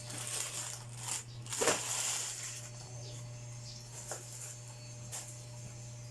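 Crinkling and rustling of packaging being handled, loudest in the first couple of seconds and then a few lighter crackles, over a steady low hum.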